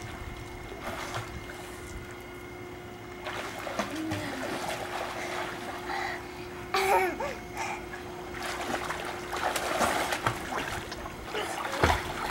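Water splashing and sloshing as children swim in a backyard above-ground pool, rising and falling unevenly, over a steady hum.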